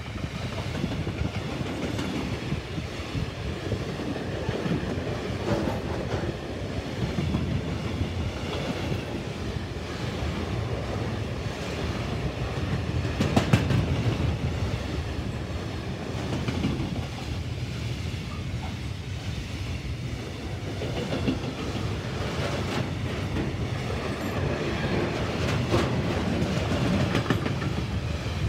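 Container wagons of a freight train rolling past close by: a steady rumble of steel wheels on the rails with a clickety-clack of wheelsets over rail joints, and one louder bang about halfway through.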